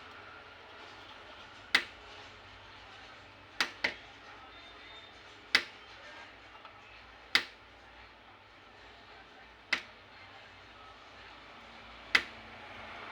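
Seven sharp, short clicks at uneven intervals of about two seconds, two of them close together near four seconds in, over a faint steady hiss.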